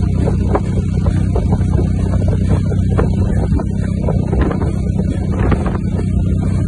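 Vehicle engine running steadily at an even pace, with wind on the microphone and scattered light knocks over it.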